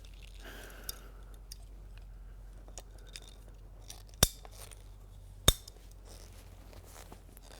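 PVC sprinkler pipe being cut by hand with a pipe cutter: faint crunching and small clicks, with two sharp snaps about four and five and a half seconds in.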